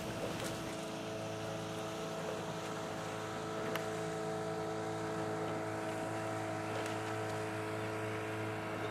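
An engine running steadily at an even, unchanging pitch, with a faint click about four seconds in.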